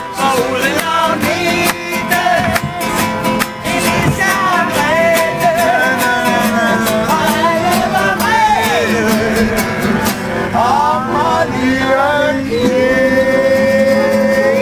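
Acoustic guitar strummed with a man singing along, ending in a long held note near the end.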